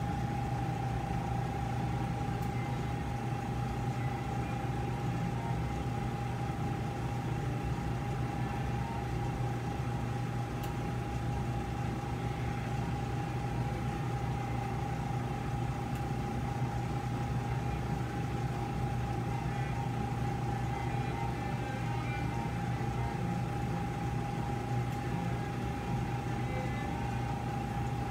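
Steady hum of operating-room equipment with a constant high whine over it.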